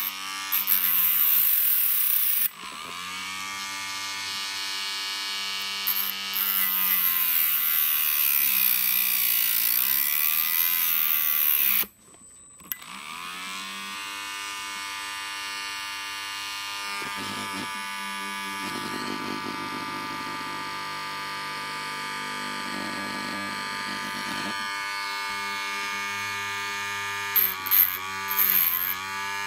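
Small handheld rotary tool with a thin cutting disc whining at high speed, its pitch dipping again and again as the disc bites into the eye of a steel sewing needle, with a high hissing grind during the cuts. The sound drops out briefly about twelve seconds in.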